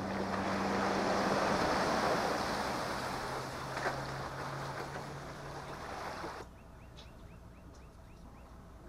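Vehicle engine running with a steady rushing noise and a low hum, cutting off suddenly about six and a half seconds in.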